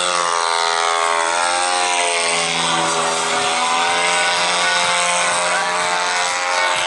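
The 100cc gasoline engine and propeller of a large radio-controlled aerobatic model airplane running hard as the plane pulls out of a nose-up hover and climbs away. Its steady drone dips in pitch over the first couple of seconds, then holds level.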